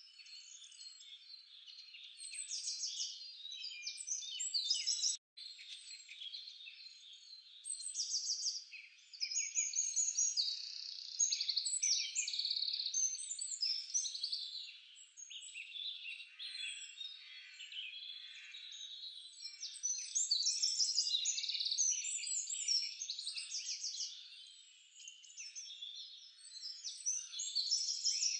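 A dense, high-pitched chorus of chirping and trilling animal calls, unbroken except for a brief dropout about five seconds in.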